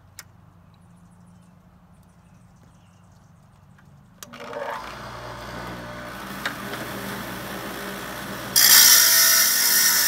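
Electric wet saw's motor humming quietly, then from about four seconds in its blade cuts into a hand-fed rock. The cutting noise builds, and near the end it turns into a much louder, harsh grinding.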